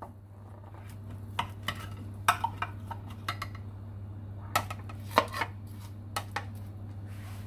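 A metal serving spoon clinking and scraping against a glass baking dish and a ceramic plate as cheesy baked fries are dished out. The clinks come irregularly, in small clusters, over a steady low hum.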